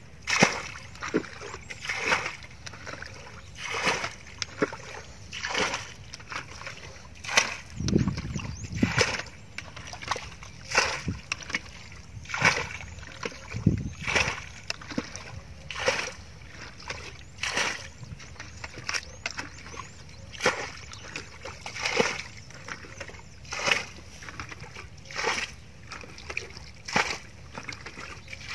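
A bucket scooping and throwing muddy water out of a shallow ditch, splash after splash at about one a second, with a couple of deeper sloshes along the way: bailing the water down to get at the fish.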